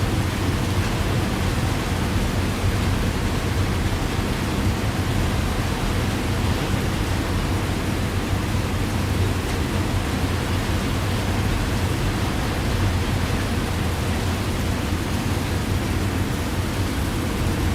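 Heavy rain falling steadily, an even, unbroken hiss over a steady low rumble.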